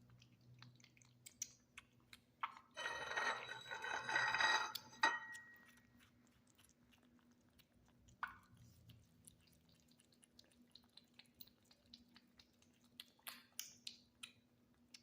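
Kittens chewing and smacking on wet tuna, a steady run of small wet clicks. A loud, high-pitched tone cuts in about three seconds in and lasts roughly two seconds.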